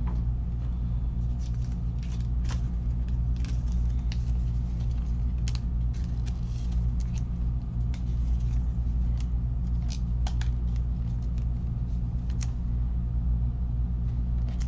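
Trading cards being handled, with soft scattered clicks and rustles of card stock, over a steady low hum.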